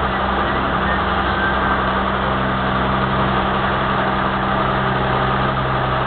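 Work truck engine idling steadily, a constant low hum.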